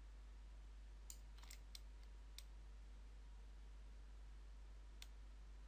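Near silence with a few faint computer mouse clicks, a cluster in the first half and one more near the end, over a steady low hum.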